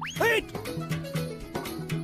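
Background folk-style film music with a steady drum beat. Just after the start it is cut across by one short, loud pitched swoop that rises and falls in about a quarter of a second.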